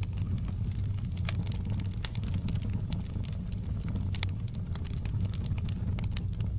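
Wood fire in a fireplace crackling: irregular sharp pops and snaps over a steady low rumble of the flames.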